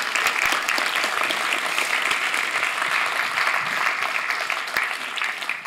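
Audience applauding: many hands clapping together in a dense, steady patter, tailing off near the end.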